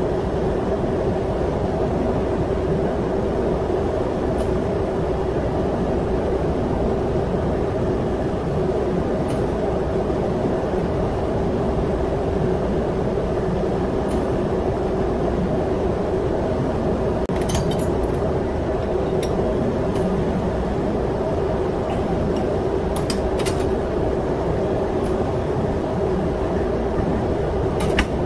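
Steady machinery drone of a ship's engine room, with a constant hum running through it. A few light metal clinks come in the second half, from fuel injector parts and tools being handled on the test bench.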